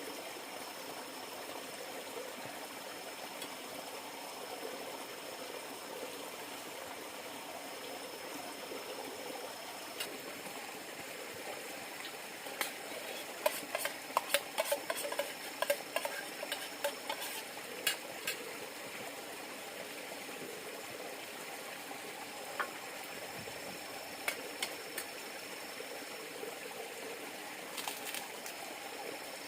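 River water running steadily, with a faint steady high tone over it. In the middle comes a quick run of sharp clicks and knocks, with a few more near the end.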